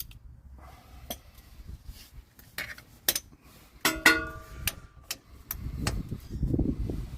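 Metal hand tools clinking as a ratchet and sockets are handled: a few sharp clicks, and one louder clink about four seconds in that rings briefly. Low rustling near the end.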